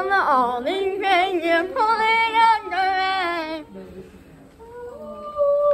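A girl singing a few long held notes without clear words, breaking off about three and a half seconds in, then a softer held note near the end.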